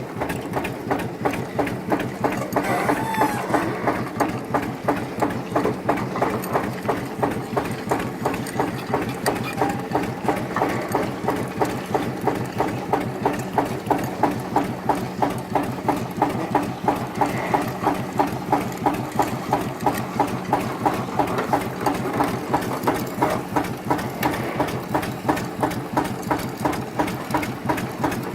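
Tractor engine running steadily, with a regular mechanical clatter about two to three times a second.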